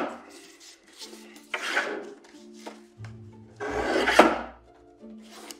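Tabletop lever paper cutter crunching through card stock in separate strokes: one ending right at the start, then two more about 1.5 s and 4 s in.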